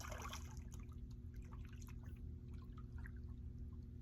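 Water splashing briefly at the start, then trickling and dripping in small splashes, over a steady low hum.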